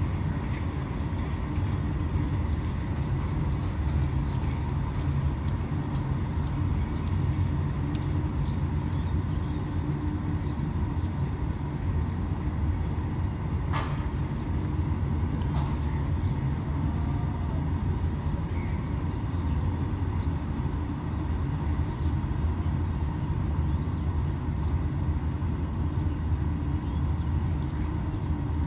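Freight train of open-top steel wagons rolling past: a steady low rumble of wheels on the rails, with one brief high squeak about halfway through.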